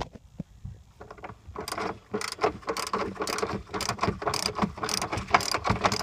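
Ratchet wrench clicking in quick strokes as a socket on an extension backs out a seatbelt retractor's mounting bolt, starting about a second in.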